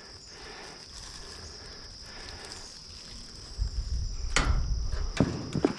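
Insects droning steadily at a high pitch. In the second half, rustling and a low rumble with a few sharp clicks of handling or footsteps among brush and tin.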